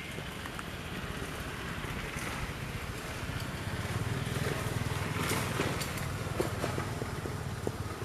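A motor engine running steadily with a low hum, growing louder in the middle and easing off again.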